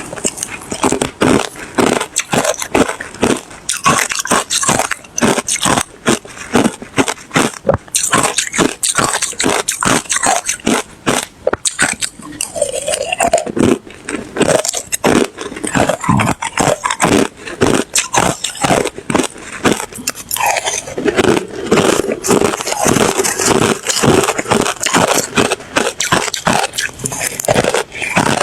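A person biting and chewing ice close to the microphone: a fast, unbroken run of loud crunches, several a second.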